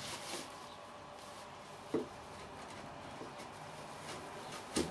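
Bench chisel pushed by hand through pine, quiet scraping cuts as chips are pared away, with two short knocks, one about two seconds in and one near the end.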